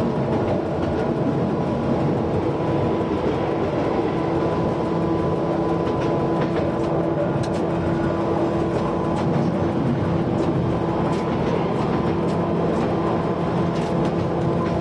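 Duro Đaković narrow-gauge railcar running steadily along the track, its engine droning evenly under the running noise, with scattered light clicks from the wheels on the rails.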